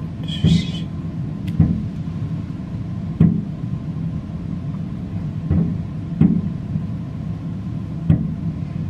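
Aerial fireworks shells bursting: about six sharp booms at uneven intervals over a steady low rumble.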